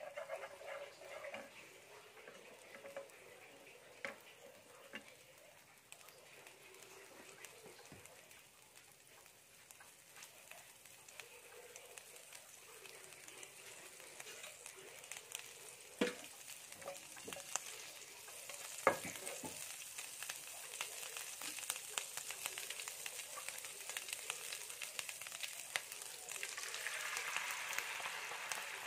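Oil sizzling in a nonstick frying pan as small bits of food are stirred with wooden chopsticks, with scattered light clicks and two sharp taps of the chopsticks on the pan about halfway through. Near the end beaten egg goes into the hot oil and the sizzle gets louder and brighter.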